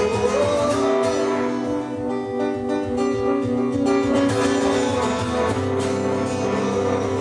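Acoustic guitar strummed in a live folk song, a steady run of chords.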